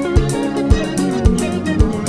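Sungura band music: interlocking plucked electric guitar lines over bass and a kick drum beating about twice a second.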